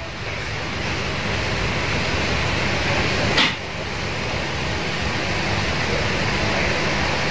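Steady rushing background noise, with one brief sharp sound a little over three seconds in.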